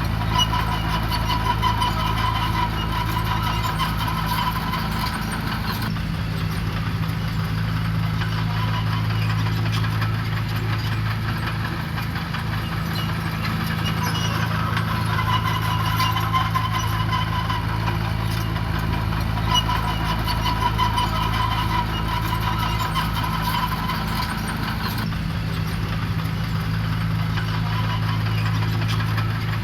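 Diesel engine of heavy road-building machinery running steadily under a constant low drone. A high whine rises and fades several times over it.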